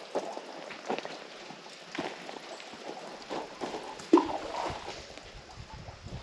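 Footsteps on a dirt trail, soft crunching steps about once a second, with one louder step about four seconds in.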